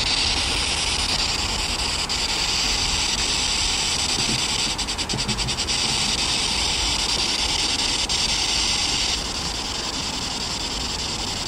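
Ghost-hunting spirit box sweeping the radio band, giving out steady hissing static, with a quick run of about ten clicks a second near the middle. The upper hiss drops away suddenly near the end.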